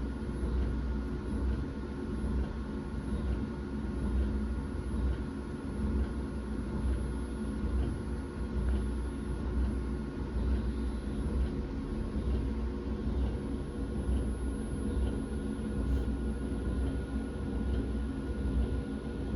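Lehigh MR-3040 alloy-wheel CNC lathe running steadily while it digitizes a rim's profile: a constant low hum with several steady tones, unchanging throughout.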